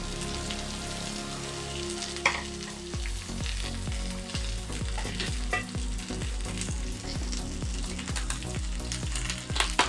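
Shredded cabbage sizzling as it fries in a little oil in a pan, with a sharp clatter about two seconds in and another near the end.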